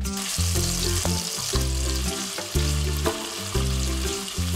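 Diced bacon and sliced garlic sizzling in hot olive oil in a frying pan, a steady frying hiss, with background music underneath.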